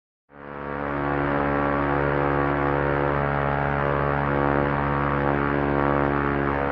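Propeller aircraft engine running steadily at constant speed. It fades in quickly from silence just after the start.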